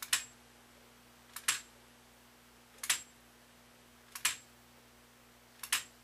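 Zenith Space Command mechanical remote control being pressed over and over, each press a sharp double click as its spring hammer strikes an aluminium tone rod, about once every second and a half. It is sending the first alignment tone to the receiver chassis. A faint steady hum runs underneath.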